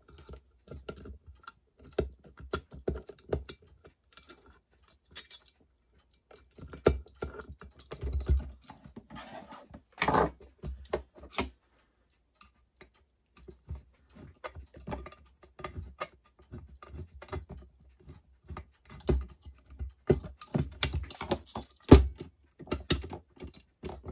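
Irregular small clicks, taps and knocks of metal parts being handled and fitted as a toy locomotive's motor is secured into its body with a cross pin and screw. A short scraping rustle comes about ten seconds in.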